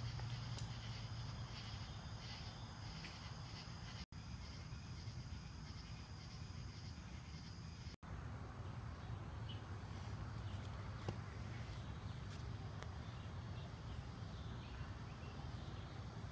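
Quiet outdoor ambience: insects chirping in thin, steady high tones over a low steady hum. The sound drops out briefly twice, about four and eight seconds in.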